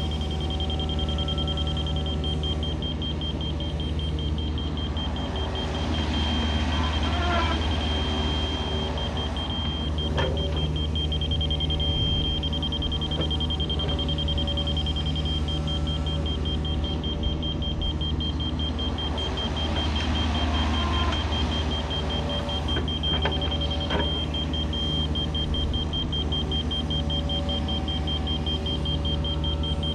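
Diesel engine of compact earthmoving equipment running steadily under work, with a rapid, steady high-pitched warning beep over it and a few faint clunks.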